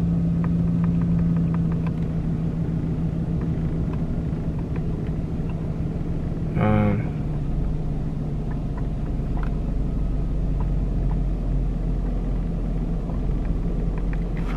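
Steady low rumble and hum inside a GMC pickup truck's cab while it sits stationary during a code scan, with a brief pitched tone about seven seconds in.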